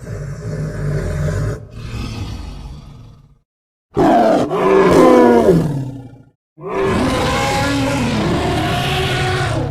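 Three separate monster roar sound effects with short silences between them. First a low rumbling growl that fades, then a loud roar falling in pitch, then a long, steady roar.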